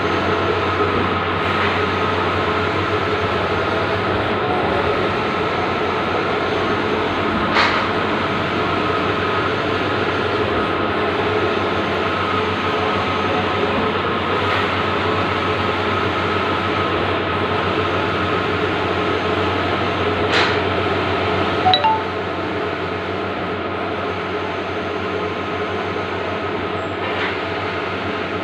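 Bluewin large-format outdoor digital printer running, a steady mechanical hum and whir with a few sharp clicks. Near the end there is a short clink, after which it runs a little quieter.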